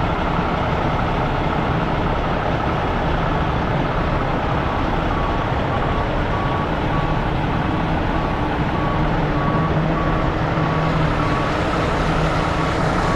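A heavy-equipment backup alarm beeps steadily about once a second over the constant running of heavy diesel engines.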